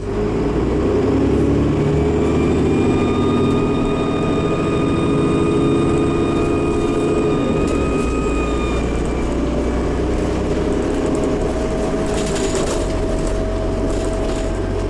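Dennis Trident bus engine running with an odd-sounding turbocharger whine over the low engine drone. The high whine holds for about nine seconds and fades, and a lower steady tone takes over for the rest.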